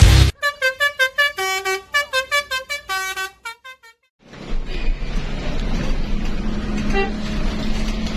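Telolet bus horn playing a rapid tune of short, stepping notes for about three seconds, stopping suddenly. After a moment it gives way to the bus's steady running noise, with one short horn note about seven seconds in.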